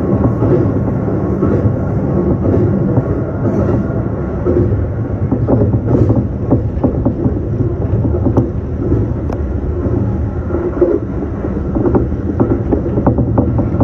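Local train on the Tohoku Main Line running at speed, heard from inside the car: a steady loud rumble of wheels on rail, with many short clicks and knocks from the track that come thicker in the second half.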